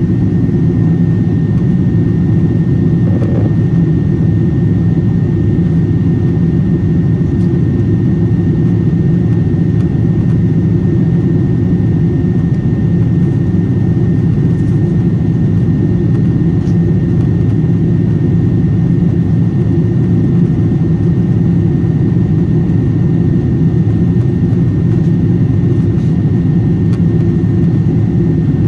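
Boeing 777-300 cabin noise in flight, heard from a window seat: a steady low rumble of the jet engines and airflow, with a thin constant whine running through it.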